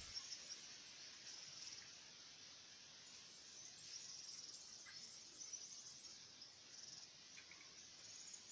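Faint insect chirping in short, pulsed high trills that come and go several times over a quiet field background, with a couple of brief fainter chirps.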